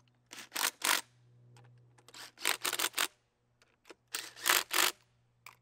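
Cordless drill driving the nuts tight on the throwing wheel's hub of a Jugs football machine. It runs in three short bursts of quick pulses, one per nut, about half a second in, in the middle and near the end.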